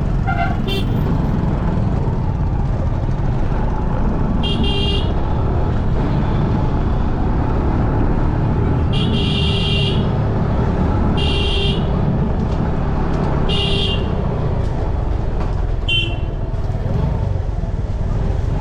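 Road traffic rumbling steadily, with vehicle horns honking about five times, short toots lasting up to a second.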